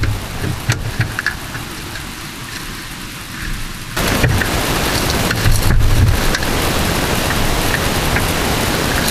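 Steady rushing hiss that gets louder about four seconds in, with a few dull low thumps.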